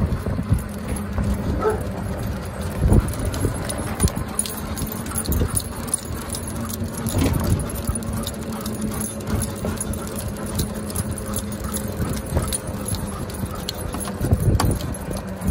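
Two huskies running on pavement: quick irregular paw-falls and the jangle of harness clips and leash hardware, over a steady low hum.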